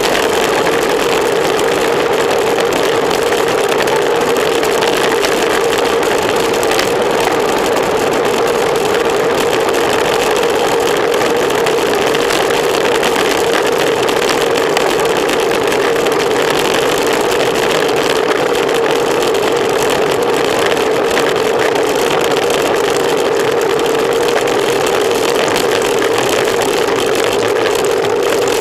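Steady rush of wind and road noise on a bicycle-mounted camera's microphone at riding speed, with a constant mid-pitched hum underneath.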